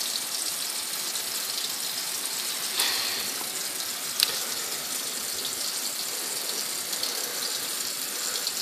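Tap water running steadily into a sink, with a soft knock about three seconds in and a sharp click about a second later.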